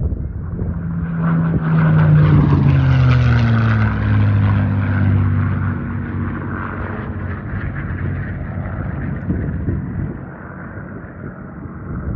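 P-51 Mustang's V-12 piston engine and propeller passing overhead in a flyby. The engine's pitch drops as it goes by, about two seconds in, then the sound fades slowly as it flies away.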